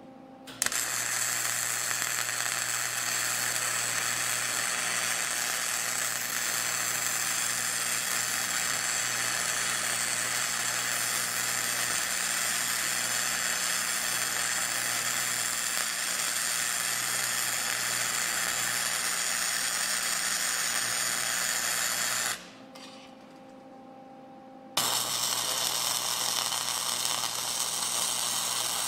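Arc welding on the steel sawmill carriage: a steady crackling sizzle from the welding arc. It is one long bead that stops suddenly about 22 seconds in, then after a pause of two or three seconds the arc strikes again and crackles on.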